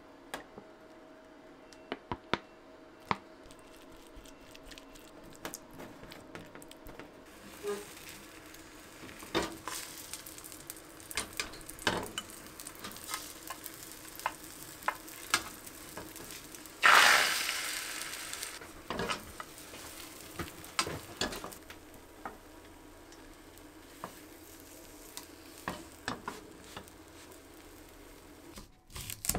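Beaten egg sizzling in a hot rectangular tamagoyaki pan over a gas flame, with wooden chopsticks clicking against the pan as the omelette is worked and rolled. About halfway there is a sudden loud burst of sizzling that dies down over a couple of seconds.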